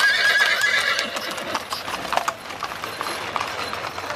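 Hooves of a pair of trotting horses clip-clopping on an asphalt road as a horse-drawn wagon passes, with a short high-pitched cry at the very start.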